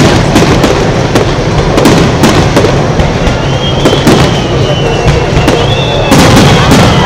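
Fireworks going off in quick succession: aerial shells bursting with repeated sharp bangs and crackling. High wavering whistles join in from about three seconds in.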